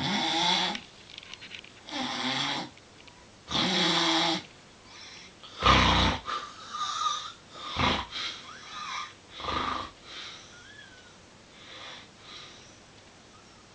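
Snoring: three even snores about two seconds apart. About six seconds in comes a loud snort, then a run of short, irregular breathing noises that fade away.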